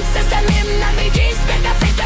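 Electronic dubstep-style music with heavy bass hits and dense layers.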